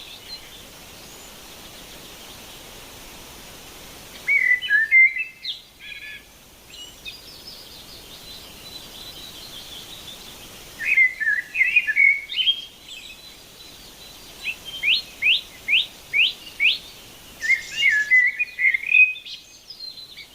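Songbirds singing: short bursts of warbling song every few seconds, with a run of quick rising whistled notes, over a steady background hiss.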